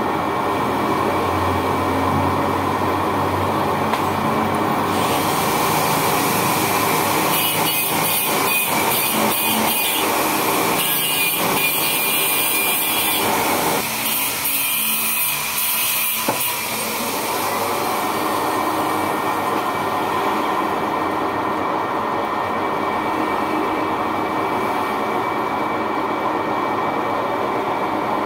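Manual lathe running steadily while a boring bar cuts the bore of a spinning nylon bearing housing, peeling off curled nylon swarf. A hiss of cutting with an irregular rapid rattle comes in about five seconds in and fades out around seventeen seconds, leaving the lathe's steady hum.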